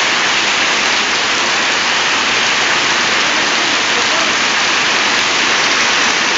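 Hailstorm: hailstones and rain pelting down in a loud, dense, unbroken hiss.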